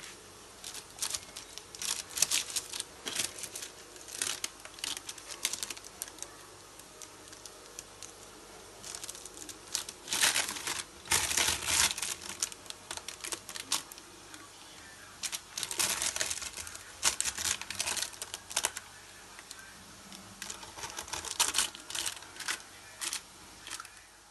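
Knife cutting through a freshly baked, crisp oat slab on parchment paper: crackly crunching and paper crinkling in several spells of a few seconds each, with short pauses between.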